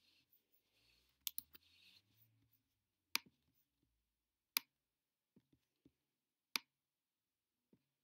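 Faint, sparse clicks of a computer pointing device as a photo is cropped in editing software: three quick clicks about a second in, then single sharper clicks spaced a second or two apart, with a faint soft rubbing between the first clicks.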